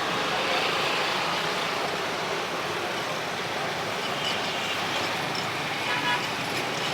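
Steady street noise of passing traffic, an even rush with no clear single event.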